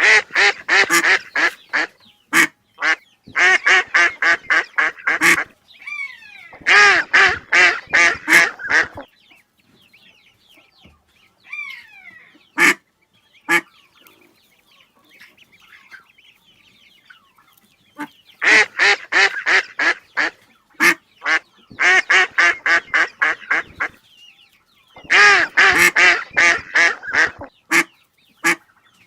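Ducks quacking in loud rapid runs of about five quacks a second, in several bursts, with fainter short falling calls in the pauses between the runs.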